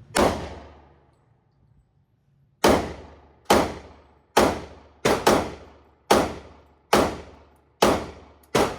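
Handgun shots fired in an indoor range, about ten in all, with the reports echoing off the walls. One shot comes first, then after a pause the rest follow at roughly one a second, with a quick double shot near the middle.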